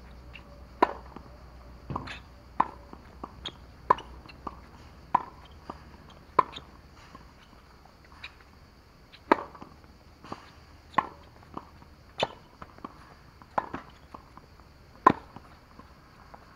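Tennis balls struck by a racket and bouncing on a hard court: sharp pops about every second or so, with smaller taps and shoe steps between them.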